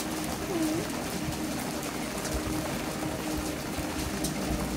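Steady rain falling, with faint scattered drips and a faint low hum underneath.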